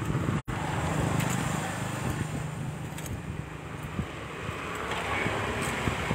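Hot oil sizzling and bubbling steadily around banana fritters deep-frying in a large pot, with a few light clicks of metal tongs against the wire draining rack. The sound cuts out completely for a moment about half a second in.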